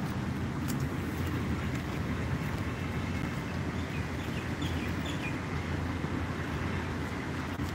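Storm wind buffeting the phone's microphone: a steady low rumble.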